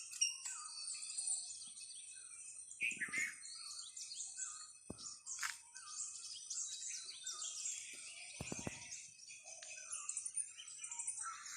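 Many small birds chirping and singing over one another in a morning chorus, with a steady high-pitched tone running beneath. A few soft knocks sound partway through.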